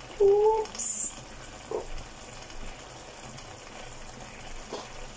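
Seafood sauce simmering in a frying pan, a steady low bubbling and sizzling, with a brief high hiss about a second in and a few light knocks as tomato puree is added and the pan worked by hand.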